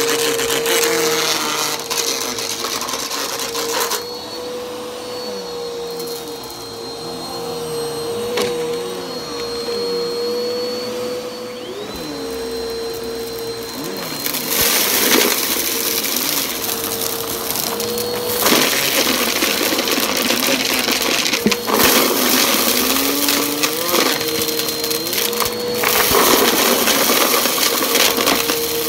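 A Bissell upright vacuum with a TurboBoost brush runs on carpet: a steady motor hum with lower tones that waver in pitch. From about halfway through come long stretches of louder rushing and crackling.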